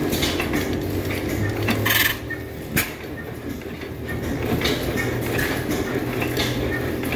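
Antique stationary gas engine running, its valve gear and governor clacking in a steady rhythm a little more than once a second over a low hum. A short hiss comes about two seconds in, followed by a sharp click.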